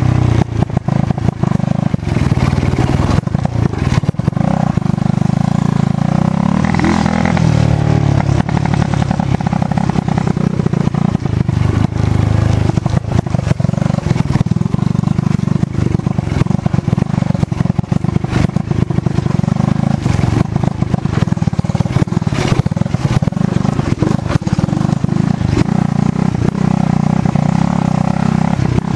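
Dirt bike engine running under way on a rough trail, the revs rising and falling with the throttle. Constant buffeting and rattling runs underneath.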